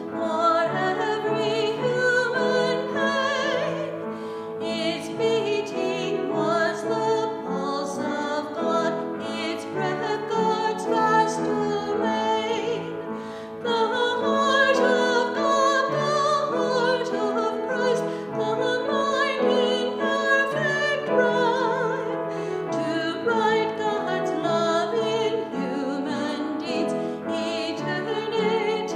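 A woman singing a hymn with instrumental accompaniment, long held notes over steady chords.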